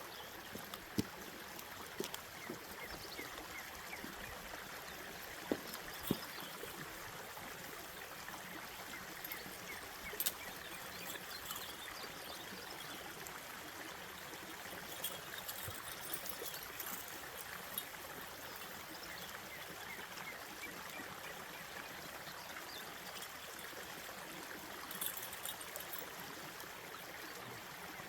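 Fast-moving mountain creek, running high after heavy rain: a steady rush of flowing water, with a few short sharp clicks now and then.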